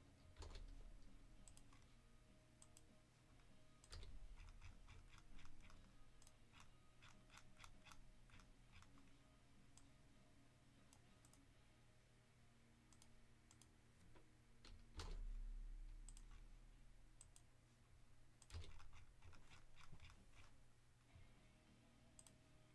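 Faint clicking and tapping of a computer keyboard and mouse, in scattered runs, over a steady low room hum. A single soft thump with a low rumble comes about fifteen seconds in.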